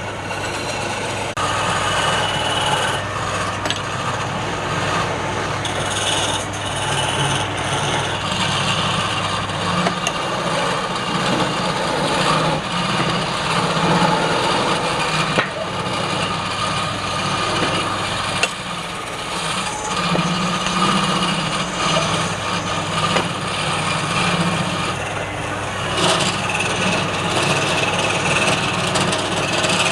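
Wood lathe running while a turning tool cuts and scrapes the spinning wood: a steady motor hum under a continuous rasping noise that rises and falls.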